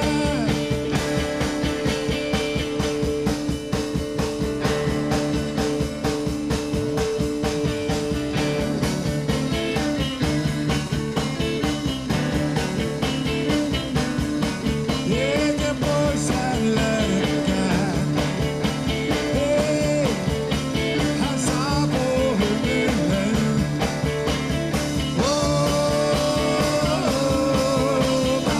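Live rock-and-roll band with electric guitars, bass and drums playing an instrumental passage, a lead guitar line with bent notes over a steady drum beat.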